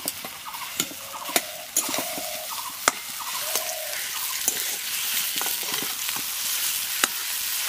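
Mashed boiled potato being stirred and pressed into hot oil in an aluminium kadai with a metal spatula. A steady sizzle runs under it, with several sharp clinks and scrapes of the spatula against the pan.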